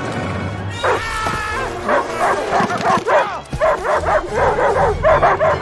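Large cartoon guard dog barking rapidly and repeatedly, about three barks a second from about two seconds in, over background music.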